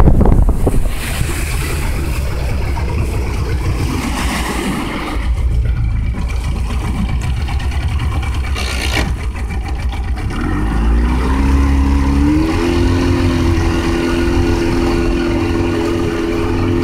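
Mercury 115 outboard motor running under way, with wind and water rushing past. About ten seconds in, the engine's pitch rises as it is throttled up, then holds steady.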